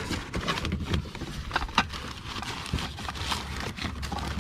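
Paper crinkling and rustling as dishes are unwrapped from their packing, with a scatter of light clicks and knocks from the pieces being handled.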